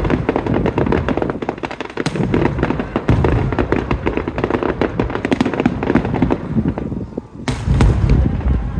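Aerial fireworks bursting, a dense rapid crackle of many small reports over deeper booms. There is a brief lull about seven seconds in, then a heavier cluster of booms.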